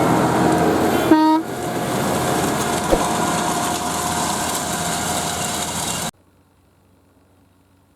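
Case IH Puma 240 CVX tractor running with a Horsch Pronto 6 DC seed drill in work, a steady loud engine-and-machinery noise. A brief pitched tone sounds about a second in, and the sound cuts off abruptly about six seconds in.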